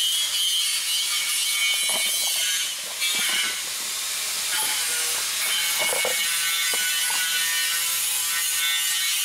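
Steady high-pitched machine whine and hiss from running shop equipment, with the rustle and a few clicks of a cardboard parts box being opened and a solenoid taken out.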